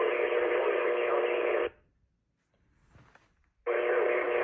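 Distant AM radio reception, thin and full of static, as from a far-off station at night. About two seconds in the audio cuts out to near silence, with only a faint murmur, then comes back abruptly.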